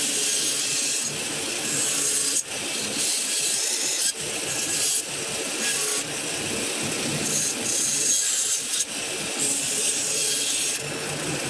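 Band saw running and cutting a curved line through plywood, a steady hissing cut that drops briefly a few times.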